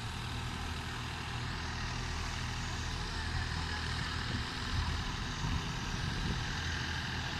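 Diesel engines of two 4WD farm tractors, an Eicher 650 and a John Deere, running steadily as a low drone while the tractors pull tillage implements.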